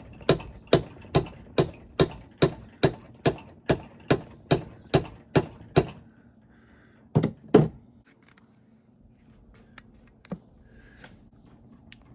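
Repeated hammer blows on metal, about two strikes a second for roughly fourteen blows, stopping about six seconds in. A second later come two heavier blows close together. They are driving a stuck part out of an NV3500 transmission's aluminum case.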